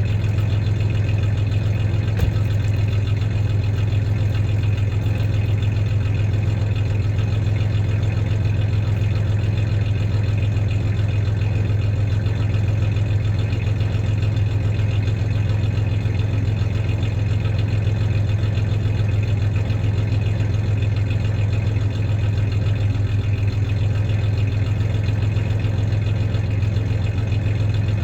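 1993 Ford Ranger's 3.0 V6 idling steadily with a slight misfire, with a small click about two seconds in.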